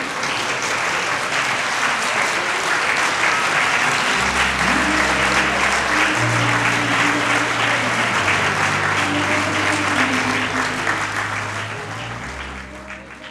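Theatre audience applauding steadily, with music coming in about four seconds in as low held bass notes; the applause and music fade out near the end.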